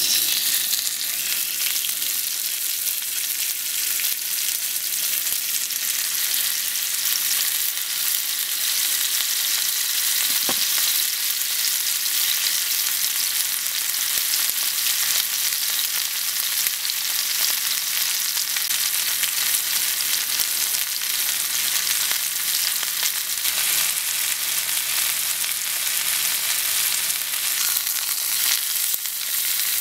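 Beef tenderloin steak sizzling steadily as it sears in a hot skillet, the sizzle jumping up as the steak is laid into the pan.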